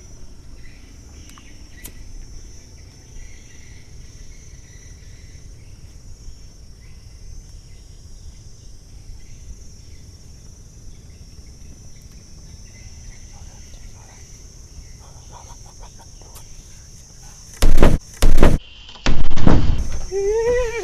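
Crickets chirring steadily, then near the end three very loud blasts in quick succession from firecrackers set off as a scare, followed by a short startled cry.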